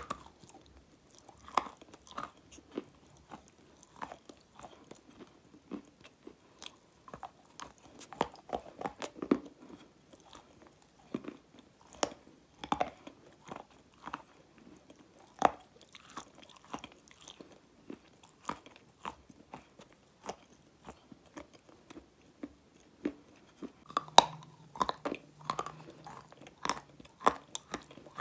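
Grey clay chunks being bitten and chewed close to the microphone: irregular crisp crunches and clicks, growing denser and louder near the end as a fresh bite is taken.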